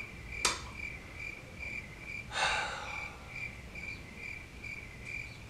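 Cricket chirping at about two even chirps a second, the stock 'awkward silence' effect, with a short breathy exhale about two and a half seconds in.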